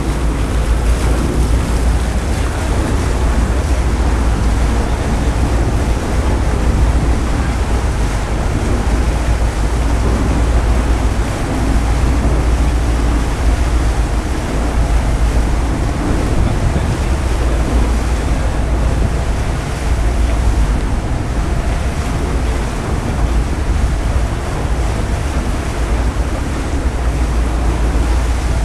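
Wind buffeting the microphone of an action camera held out at the bow of a sailing catamaran under way, over the rush of sea water along the hulls. A loud, steady noise with a heavy low rumble that does not let up.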